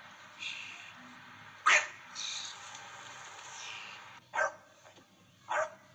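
Small dog barking: three short, sharp barks. The first, about two seconds in, is the loudest; the other two come near the end.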